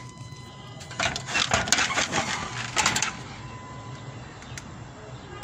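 A quick flurry of clicks and rattles lasting about two seconds, starting about a second in, over a low steady hum.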